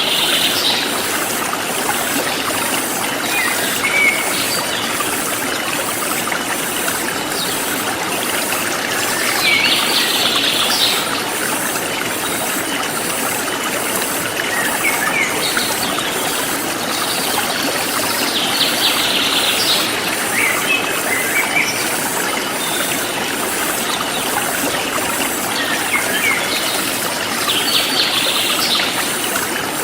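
Forest stream flowing steadily, with a bird singing a short phrase about every nine seconds and scattered chirps between. A faint high insect trill pulses evenly in the background.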